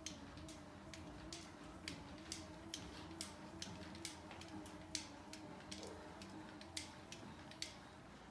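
HMS H1742 elliptical trainer being pedalled: faint, sharp clicks from its moving pedal arms and linkage, about two a second and fairly regular, over a faint wavering hum.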